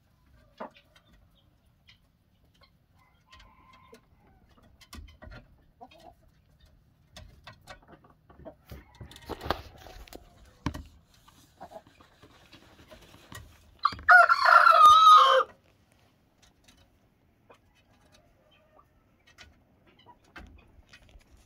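A rooster crows once, about two-thirds of the way in: a single short crow lasting about a second and a half. Faint clucks come before and after it.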